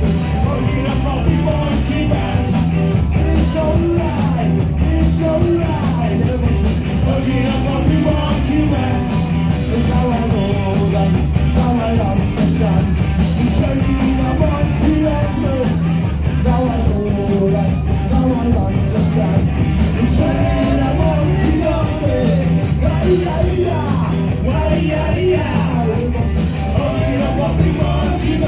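Live rock band playing loudly on electric guitar and drums, with a singer on the microphone, as heard from in the crowd.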